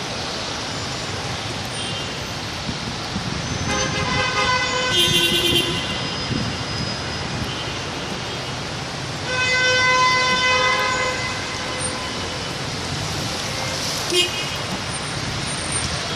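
Car horns honking in road traffic: two long horn blasts, one about four seconds in and another about nine seconds in, over steady traffic noise.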